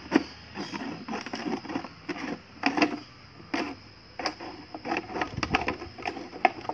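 Knife sawing through a thin plastic PET bottle, the plastic crackling and clicking irregularly as the blade cuts and the bottle is turned.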